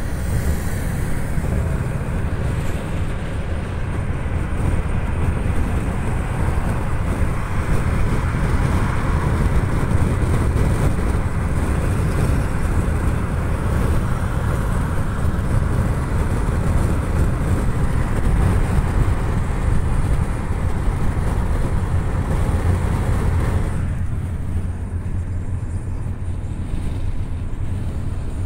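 Road noise inside a car cruising on a highway: a steady low rumble of engine and tyres with wind hiss. The hiss drops away near the end, leaving a duller rumble.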